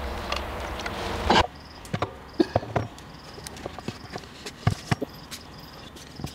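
A steady hum with faint scraping during the first second and a half, then it cuts off; after that, scattered light clicks and knocks of wooden scooter parts being handled and fitted on a wooden workbench, with an insect chirping in short repeated calls in the background.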